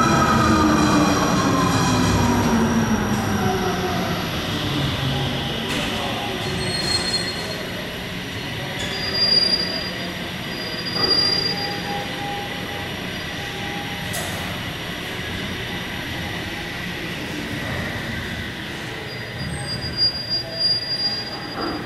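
Cable-hauled funicular car running into its terminus station. A falling whine in the first few seconds as it slows, then a steady rumble of the wheels on the track with short high squeals as it comes in to stop.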